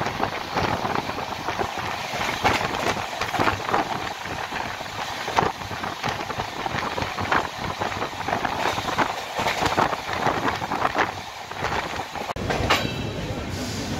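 Indian Railways superfast express train running, its wheels clattering over the rail joints with a steady rattle. A deeper rumble sets in near the end.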